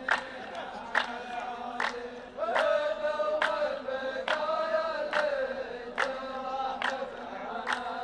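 A line of men chanting a verse together in unison, with hand claps in a slow, even beat a little under one per second. The chant swells about two and a half seconds in.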